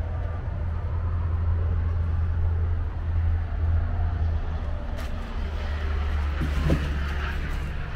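Highway traffic: a steady low rumble of motor vehicles going by.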